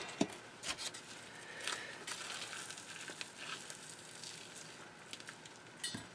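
Faint handling sounds of rubber-gloved hands pulling the heads off partly frozen squid on a plastic cutting board: scattered small crackles and soft clicks, with a slightly louder knock near the end.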